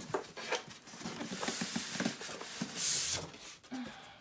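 Cardboard packaging being handled: rustling, small knocks and scraping as the flaps of a large cardboard box are opened, with two longer hissing scrapes about a second and a half and three seconds in.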